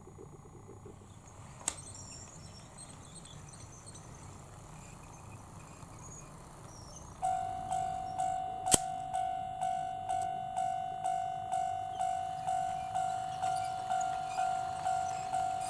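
Electronic warning bell of a KATO automatic level crossing model starting up about seven seconds in, a repeating pitched ding about twice a second. A sharp click sounds about a second after it starts, and there is a low steady hum beforehand.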